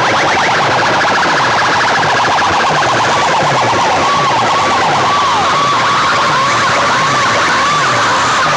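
Stacks of horn loudspeakers blasting a siren-like effect at full volume. It begins as a fast stutter of chirps, then becomes a tone wailing up and down, over a low beat about twice a second.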